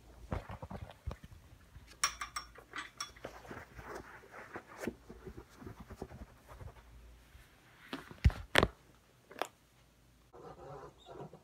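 Rustling and clattering of objects being handled close to the microphone, a string of small clicks and scrapes, with two sharp knocks about eight seconds in.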